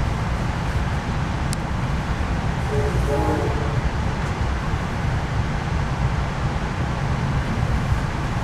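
Steady low rumble of a passenger train running along the track, heard from on board.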